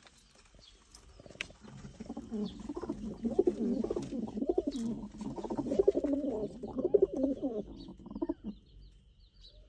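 Several domestic pigeons cooing, their low calls overlapping in a continuous warble from about two seconds in until near the end.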